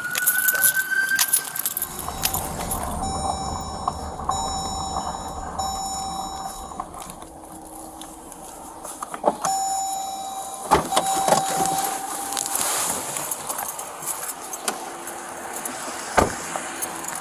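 A steady electronic beep tone repeating in pulses about a second long, three in a row and then two more a few seconds later, over clinking and clicking of gear.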